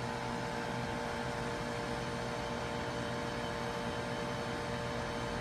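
Steady mechanical hum with a constant hiss: a few held tones over an even noise, unchanging.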